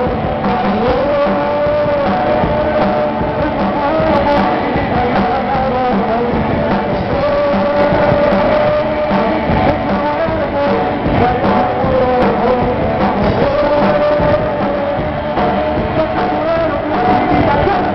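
A live rock band playing, with guitars and a sung melody, heard through a PA sound system. Loud and continuous.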